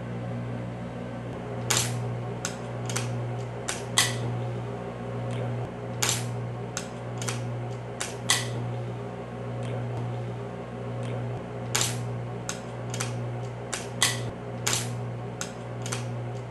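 Aluminium lure-mold halves being fitted together and clamped with locking C-clamp pliers: a string of sharp metallic clicks and clacks, some in quick pairs, over a steady low hum.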